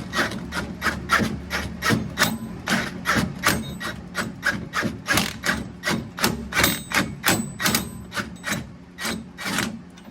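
Repeated hand-hammer blows, about three a second, in a steady rhythm.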